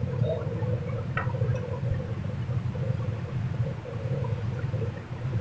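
Steady low background hum, with one faint click about a second in.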